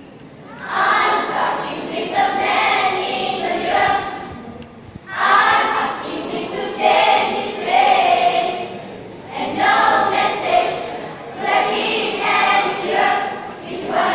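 A school choir of teenage girls and boys singing together in phrases of a few seconds each, with short breaks between phrases; the singing comes in about a second in.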